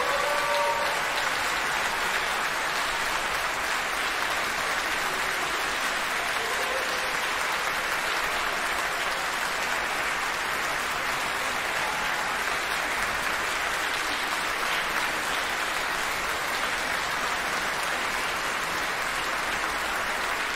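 Concert audience applauding steadily. A few last ringing tones fade out in the first second.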